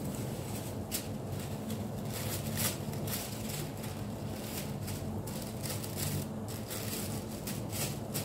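Breaded potato-and-cheese croquettes deep-frying in a pot of oil: the oil sizzles with irregular crackles and pops over a steady low hum, the croquettes only partly browned.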